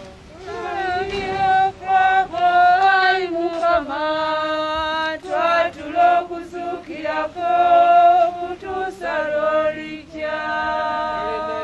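A woman singing a slow hymn, phrases of long held notes with short breaks between them.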